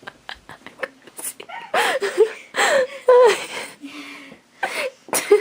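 A young woman's voice in short bursts of unclear vocalising, with a few light clicks in between.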